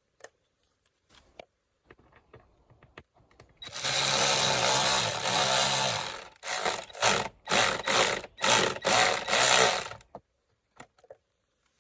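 Cordless power driver screwing the Torx bolts back into a plastic air filter box: one run of about two and a half seconds, then several short bursts as each bolt is snugged down.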